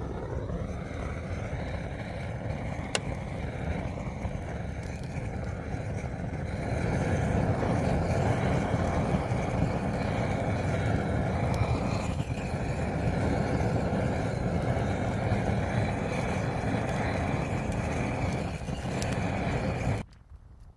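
A vehicle driving, its engine and road noise running steadily, getting louder about six seconds in.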